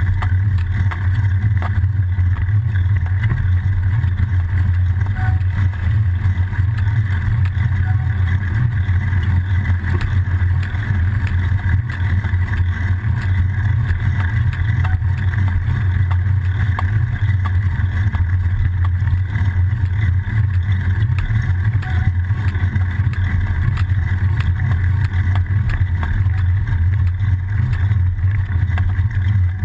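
Steady low rumble of a bicycle rolling along a road, heard through a frame-mounted GoPro: tyre and road vibration mixed with wind on the microphone, with a few faint ticks and rattles.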